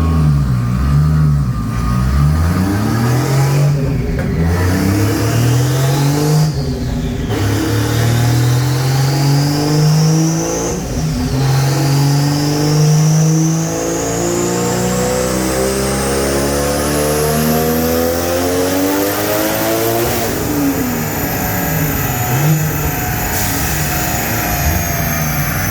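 Turbocharged 1JZ inline-six pulling hard under full throttle, its pitch climbing through several gears with a brief dip at each shift, and a high whine rising with it. About twenty seconds in, the revs fall away as the throttle is lifted.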